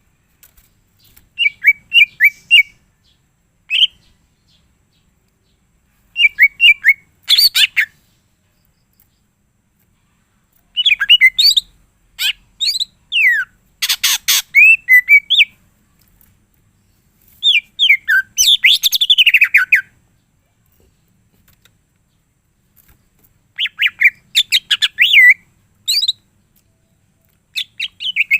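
A green leafbird (cucak ijo) singing in short bursts of rapid, high chirps and whistled glides with pauses between them, stringing together its repertoire of mimicked songs. A harsher, rasping burst comes about halfway through.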